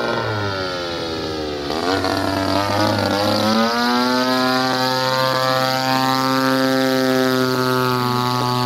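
Ultra Stick RC model plane's engine running in flight overhead. Its note falls and wavers over the first few seconds, then holds steady from about halfway.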